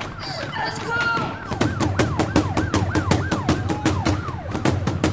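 Background music with a fast, steady percussive beat and a warbling, siren-like tone that rises and falls about four times a second. The beat comes in about a second and a half in.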